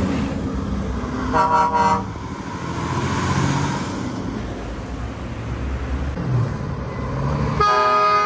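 Heavy trucks' diesel engines rumbling as they pull past, with a short horn toot about a second and a half in and a longer, fuller air horn blast starting near the end.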